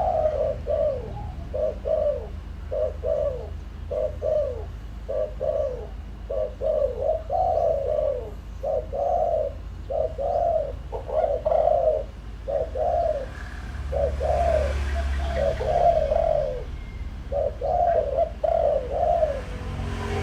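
Spotted dove cooing in a long run of short, falling coo notes, a few a second, with two brief pauses. It is a decoy dove's repeated 'gù' call, used to stir up and draw in wild doves.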